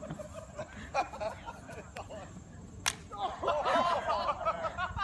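A single sharp crack about three seconds in, followed by several people shouting and calling out at a distance.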